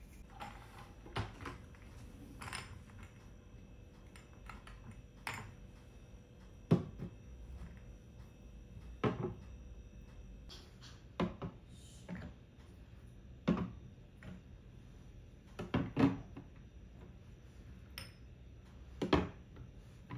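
Glass spice jars with metal lids being set down one at a time on a clear acrylic tiered spice rack: a string of light clinks and knocks, about a dozen, spread out with short pauses between.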